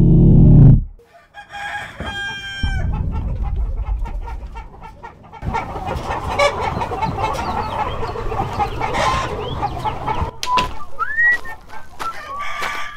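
Chickens: a rooster crowing about two seconds in, then a dense din of many chickens clucking together, as in a crowded poultry shed, from about five seconds on. A short, loud, low sound comes at the very start.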